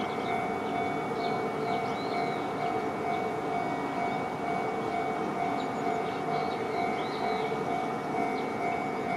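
Japanese level-crossing warning alarm ringing in a repeating two-tone pattern while a Gotemba Line train runs through the crossing, its running noise on the rails steady underneath.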